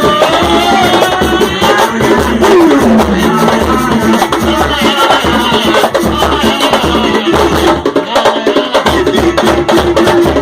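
Live samba batuque: a steady low drum beat about twice a second under dense hand percussion, with voices singing over it.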